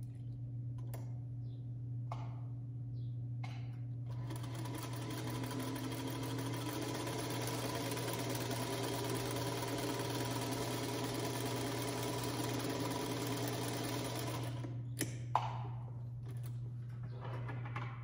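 Singer Featherweight sewing machine stitching a seam: it starts about four seconds in, runs steadily for about eleven seconds and stops abruptly, followed by a sharp click. A few light handling clicks come before it starts.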